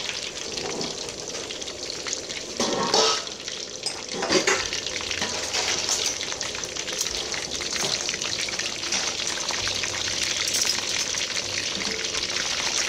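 A whole fish frying in hot oil in a steel wok, with a steady sizzling hiss. Two brief louder spells come about 3 and 4.5 seconds in.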